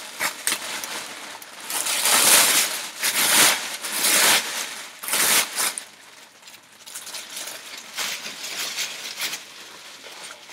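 Clear plastic garment bag crinkling and rustling as it is pulled off a dress on a hanger: several loud rushes of crinkling in the first half, then softer crinkles.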